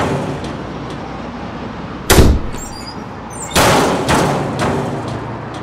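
Heavy slam-like impact hits, each ringing out slowly: one deep boom about two seconds in, then three more hits about half a second apart from about three and a half seconds in.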